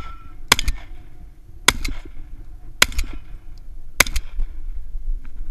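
Remington 1100 gas-operated semi-automatic shotgun firing four shots a little over a second apart, each a sharp crack with a short echo off the berm.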